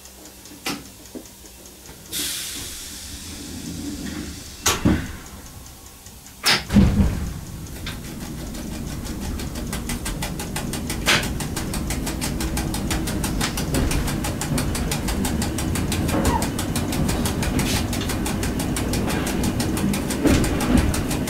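EN57 electric multiple unit pulling away, heard from the driver's cab: a few clicks, a burst of air hiss, then two loud clunks. After that the traction motors and wheels rumble steadily and grow louder as the train gathers speed.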